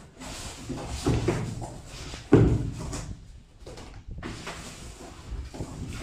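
Cardboard box and clear inflatable plastic air-cushion packing being handled: irregular rustling and scraping, with knocks as the packs are pulled out and set down, the loudest a sharp thump about two and a half seconds in.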